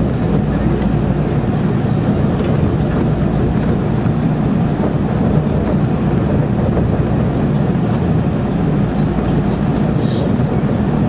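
Running noise of a local train heard inside the passenger car: a steady, loud rumble of wheels on rail while the train is under way, with a brief higher-pitched sound near the end.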